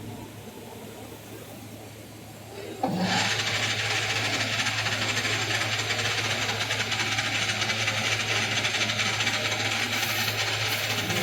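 Metal lathe running with a steady hum; about three seconds in, the turning tool engages the work and a loud, steady cutting hiss starts abruptly and runs on.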